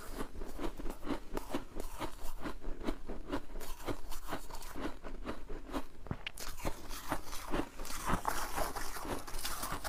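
Freezer frost being chewed close to the microphone: a quick, steady run of crisp crunches. From about six seconds in, a brighter scraping hiss joins them as fingers dig through the loose frost in the tub.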